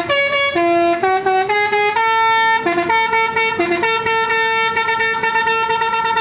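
A bus's telolet basuri horn, a multi-tone melodic horn, playing a tune of short and long notes that jump between several pitches.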